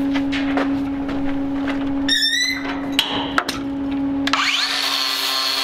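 Cordless DeWalt angle grinder running against steel, a steady motor whine with scraping contact noise. About four seconds in the pitch rises and settles into a higher, steadier whine.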